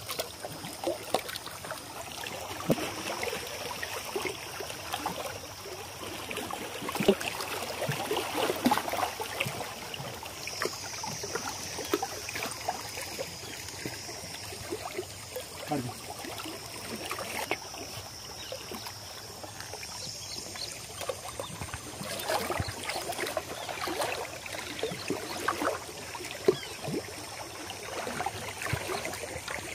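Small waves lapping and splashing against shoreline rocks, with scattered light clicks and knocks.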